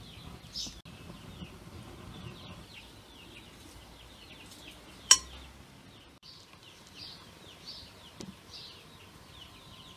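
Metal spoon stirring flour in a glass mixing bowl, with one sharp clink of metal on glass about five seconds in and a lighter tap near the end. Small birds chirp throughout.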